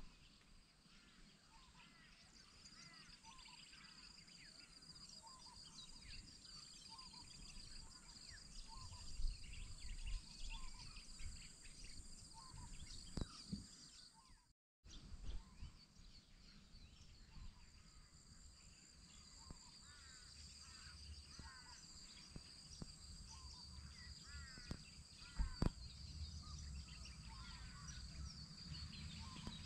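Faint bush ambience: birds chirping and calling in short repeated notes over a steady high insect drone, with a low rumble of wind on the microphone and a couple of soft knocks.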